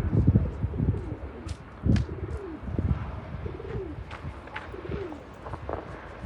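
Pigeons cooing, a series of short falling coos, with gusts of wind rumbling on the microphone.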